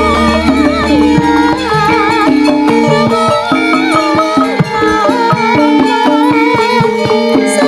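Javanese gamelan playing wayang kulit accompaniment: ringing bronze metallophones hold steady notes under a wavering high melody, with frequent kendang drum strokes.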